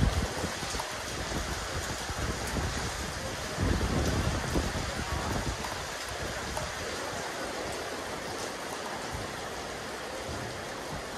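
Steady rain falling on a rooftop terrace. A low rumble rises about three and a half seconds in and fades over the next couple of seconds.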